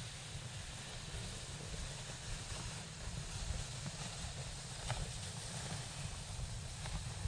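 Outdoor wind on an open snowfield: a low, uneven wind rumble on the microphone over a steady hiss, with a couple of faint ticks near the end.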